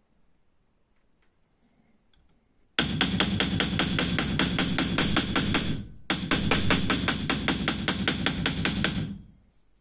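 Ball-peen hammer tapping twisted copper wire against a metal bench block, quick light strikes at about six a second, each with a high metallic ring. The tapping starts about three seconds in, breaks off for a moment around six seconds, then runs on until a little after nine seconds.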